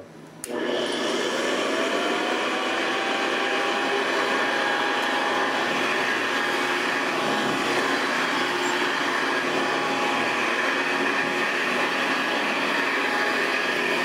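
1973 Hoover Convertible U4009 upright vacuum cleaner switched on with a click about half a second in, its motor spinning up in a rising whine over a second or two and then running steadily as it is pushed over carpet. It runs on dry, unlubricated bearings, which make it quite noisy.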